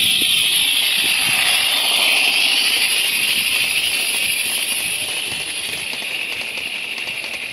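Live-steam model Climax locomotive passing with its train of log cars: a steady steam hiss over the rolling clatter of the wheels on the rails. Loudest about two seconds in, then fading as the train moves off.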